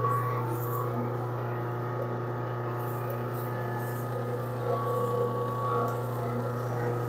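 A steady low hum with fainter steady tones above it, and a few soft clicks.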